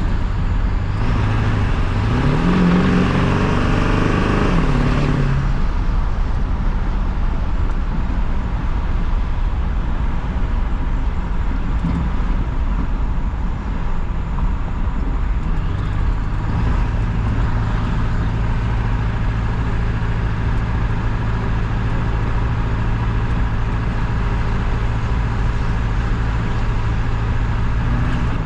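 2000 Ford F-350's 7.3 L Powerstroke turbo-diesel V8, straight-piped with the muffler deleted, driving on the road. In the first few seconds the engine pitch climbs and falls back under throttle, with a high hiss over it. From about halfway it settles into a steady cruising drone.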